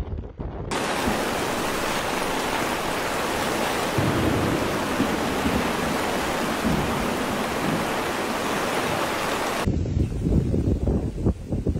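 Steady, loud hiss of torrential rain and rushing floodwater. It starts abruptly about a second in and cuts off abruptly near the end, giving way to wind buffeting the microphone.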